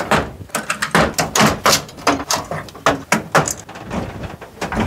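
Wiring-harness connectors and cable bundles being pulled off a projection TV's circuit board: an irregular run of plastic clicks, rattles and scrapes as the plugs come loose and the wires are handled.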